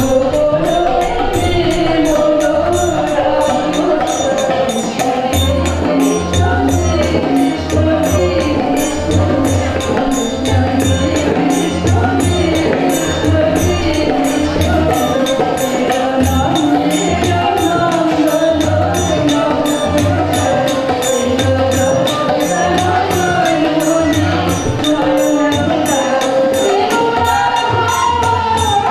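A woman singing a devotional song with harmonium accompaniment, over a steady percussion beat with regular high metallic strikes keeping time.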